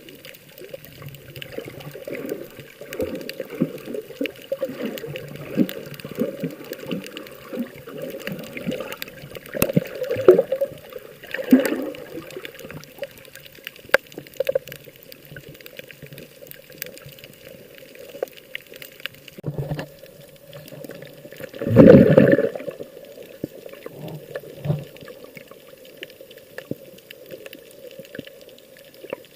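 Water sloshing and splashing close to the microphone, muffled and irregular, with a louder surge of splashing about two-thirds of the way through.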